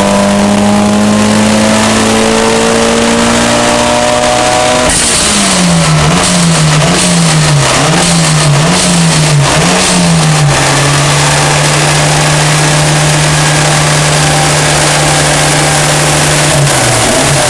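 Mitsubishi Lancer Evolution V's turbocharged 2.0-litre four-cylinder engine under full load on a rolling road, its pitch climbing slowly towards the top of the rev range. About five seconds in the pull ends with a short rush of hiss, then the revs swing up and down several times and settle to a steady drone, with a few more dips near the end.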